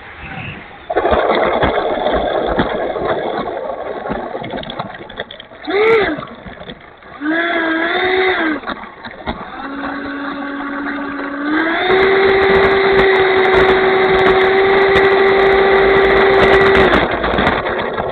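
Dynam Meteor RC sport jet's electric ducted fan whining at changing throttle, with wind buffeting the microphone. The whine rises and falls, then holds a steady pitch, steps higher, and stops abruptly near the end.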